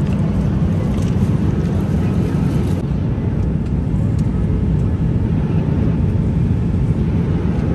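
Airliner cabin noise: a steady low drone of jet engines and airflow, heard from a passenger seat in flight.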